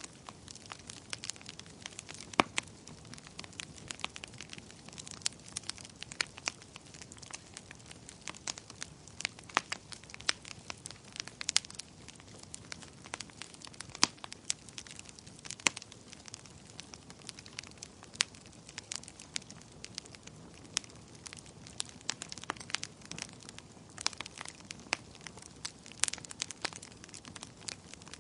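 Wood fire crackling: many sharp, irregular pops and snaps over a low steady hiss, with no pause.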